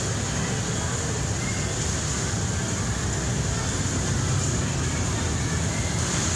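Steady background din of a busy indoor play area: indistinct voices over a low, even hum, with no single sound standing out.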